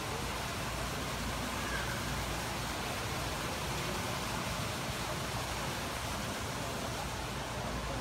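Steady, even rushing background noise with no distinct sounds standing out.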